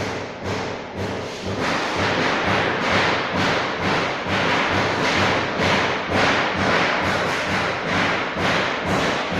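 Background music with a steady beat of about two strokes a second over a pulsing bass line.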